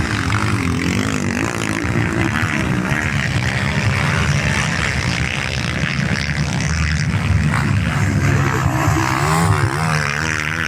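Single-cylinder Honda CG race motorcycles running in a velocross heat, the engine pitch rising and falling as the riders work the throttle.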